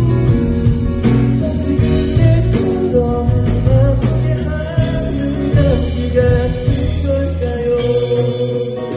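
Live band music with a male voice singing a long, wavering melodic line without clear words over bass and drums. Near the end the bass drops out.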